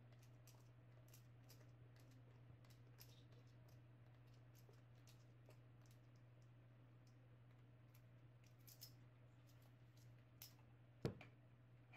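Faint, scattered clicks and ticks of a small precision screwdriver turning a fine-threaded screw in a multimeter's plastic back case, with a steady low hum underneath. A louder single knock comes near the end.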